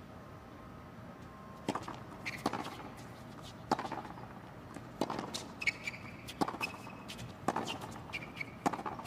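A tennis serve followed by a baseline rally on a hard court: racket strikes on the ball about once every second, with short sneaker squeaks on the court surface between shots.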